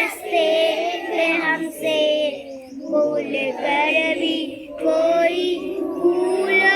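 Children singing a melody together in phrases, with brief breaths between lines.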